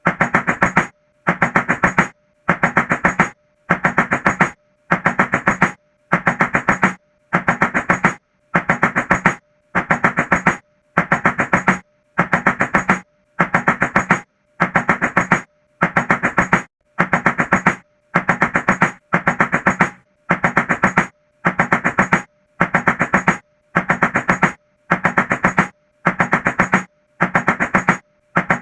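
Rapid knocking on a door in identical bursts, about one a second with short gaps between, repeating the same way over and over like a loop.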